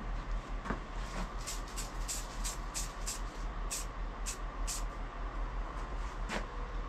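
Aerosol can of red spray paint being shaken, its mixing ball rattling in about a dozen quick clicks at roughly three a second, over a steady low hum.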